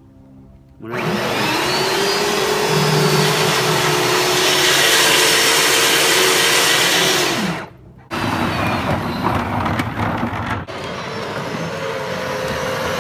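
Power Wheels ride-on toy Corvette's electric drive motors whining as its plastic rear wheels spin in a burnout, the whine rising about a second in and then holding steady. It stops briefly about seven and a half seconds in, then starts again, more uneven, as the car drives off.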